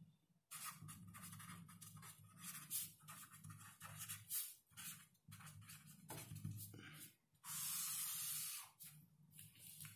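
Faint, irregular scratching and rustling over a steady low hum, with one longer hiss lasting about a second near the end.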